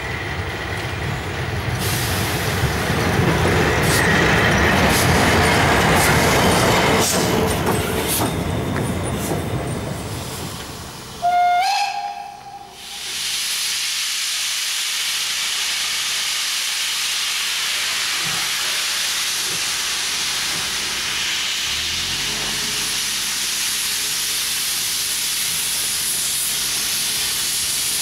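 Prussian P8 (class 38) steam locomotive 38 2267 running on the track with a loud rumble and a few clanks, then a brief whistle note about eleven seconds in. After that comes a steady hiss of steam from the locomotive.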